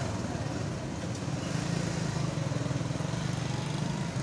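A motor engine running steadily nearby, a constant low rumble with no change in pitch.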